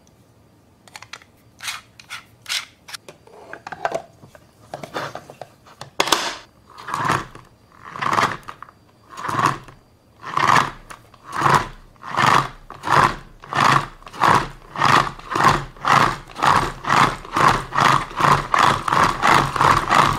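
Plastic Gudetama pudding maker, a hand-cranked egg spinner, being wound: a whirring rattle that swells with each turn of the crank, about once a second at first and speeding up to about two turns a second near the end. Before the cranking starts, a few short plastic clicks and knocks as the parts are fitted together.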